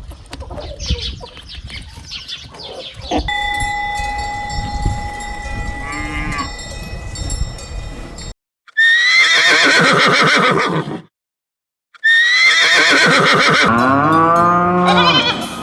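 Farm animals calling: two loud, long calls with falling pitch in the second half, each after a brief cut to silence, following fainter calls and a steady ringing tone.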